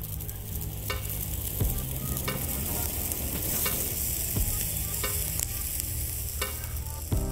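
Homemade firework filled with mixed firecracker powder burning, spraying sparks with a steady fizzing hiss and a few sharp crackles scattered through it.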